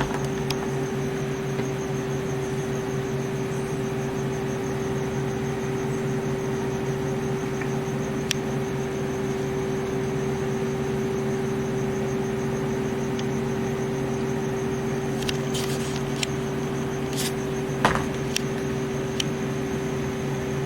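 Desktop computer running steadily while it boots, a constant whirring hum from its fans. A few faint clicks near the end.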